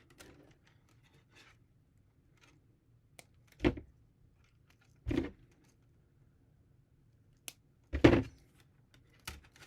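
Handling noises at a workbench: three short clatters of small objects being picked up or set down, about a third of the way in, around halfway and near the end, with faint rustling between.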